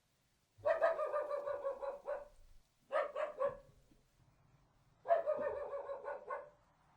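Small dog barking in three bouts: a long run starting about half a second in, a short cluster of a few barks around the middle, and another long run near the end.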